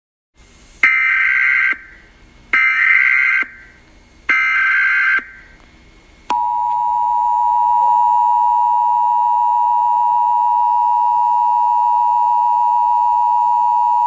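Emergency Alert System tones: three bursts of about a second each of SAME digital header data, then, about six seconds in, the steady two-tone EAS attention signal (853 and 960 Hz sounded together) begins. Together they open a Local Area Emergency alert.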